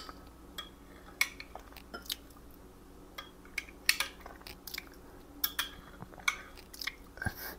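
Metal spoon clicking and scraping against the glass measuring cup in light, irregular taps while skimming milk solids off melted butter to clarify it.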